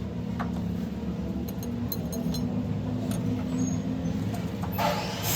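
A machine runs with a steady low hum, with scattered light metallic clicks. A loud hiss starts near the end.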